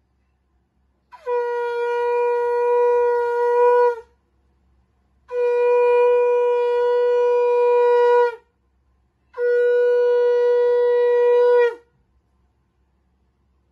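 Conch shell (shankha) blown in three long, steady blasts of about two to three seconds each, with a second's gap between them. Each blast holds one pitch and sags slightly as the breath runs out. This is the customary triple conch call at a Hindu puja.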